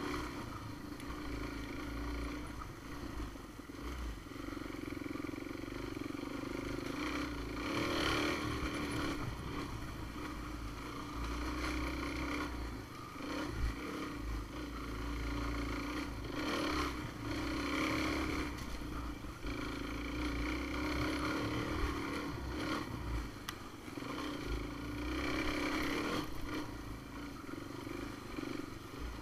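Off-road vehicle's engine running at a steady pitch on a trail climb. The throttle eases off and picks up again every few seconds, with a few brief knocks.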